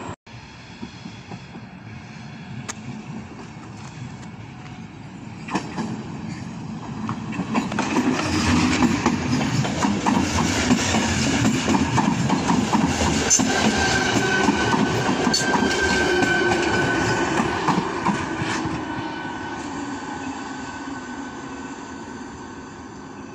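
ČD class 471 CityElefant double-deck electric unit passing close by and pulling away, its wheels clacking over the rail joints. The noise builds up, carries a steady high whine for a few seconds at its loudest, then fades as the train moves off.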